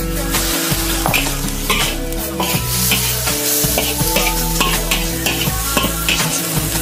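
Metal ladle scraping and stirring small fish, shrimp and chopped peppers around a large iron wok, a scrape every half second or so, over the steady sizzle of the food frying.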